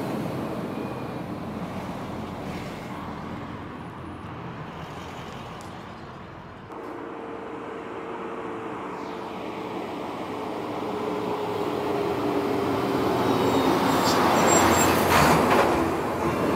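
Heavy truck engine and road noise: one truck fades away, then, after an abrupt cut, another approaches and passes close, loudest about fifteen seconds in.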